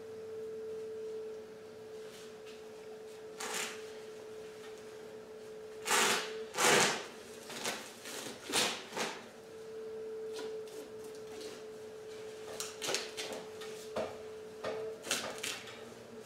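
Deer hide being pulled and peeled away from the carcass by hand, a run of short ripping, tearing sounds, loudest about six to seven seconds in. Under them a steady hum drops out for a few seconds in the middle.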